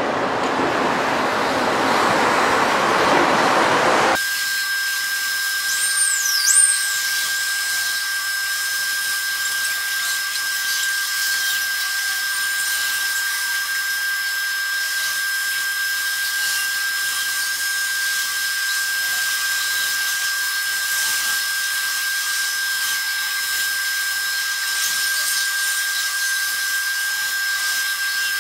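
About four seconds of rumbling noise, then an abrupt change to a steady high-pitched whine over a hiss that runs on unchanged, with a brief falling chirp about six seconds in.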